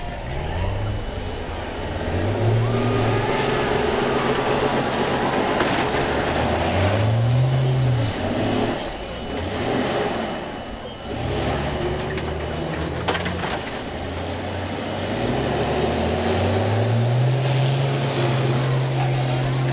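School bus engines revving up and down under load as the buses push and shove against each other, with one sharp knock of a hit about 13 seconds in.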